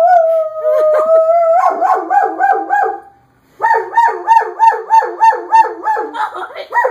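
A German Shepherd howling along with a fire engine siren recording played from a computer. It starts as a long held note, then after a short break turns into a fast repeating rise and fall of about four cycles a second.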